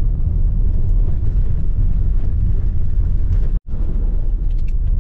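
Steady low rumble of a Nissan van driving, heard from inside the cabin: engine and road noise. The sound cuts out for a split second about three and a half seconds in, then carries on.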